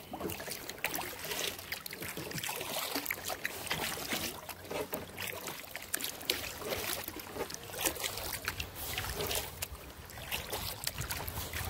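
Kayak paddling on lake water: the paddle dipping in, with water dripping and trickling off the blades in many small, irregular splashes.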